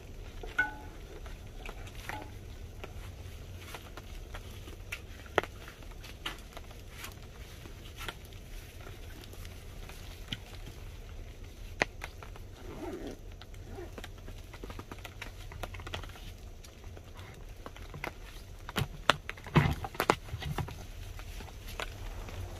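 Irregular light taps and clicks over a low steady rumble, with a short cluster of louder knocks near the end.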